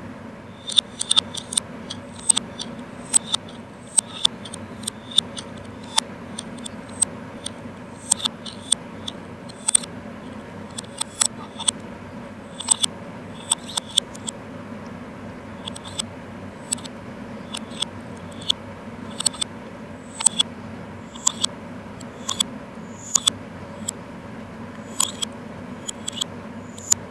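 A metal spoon clicking and scraping against a glass jar full of custard pudding, in irregular sharp clinks about one or two a second, over a steady low hum.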